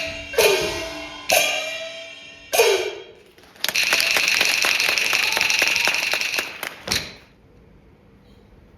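Chinese opera percussion ensemble: a few ringing large-gong strikes, each dropping in pitch as it rings, then a fast, dense roll of metal percussion lasting about three seconds, closed by a single strike, after which it falls quiet.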